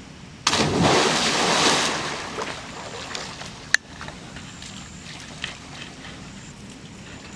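A big splash about half a second in as a person plunges into a swimming pool, the water churning and settling over the next couple of seconds. A single sharp click follows a little later.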